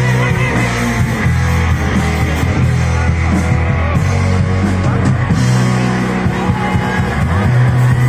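A live rock band playing through a PA: electric guitars, bass and drums, with a woman singing.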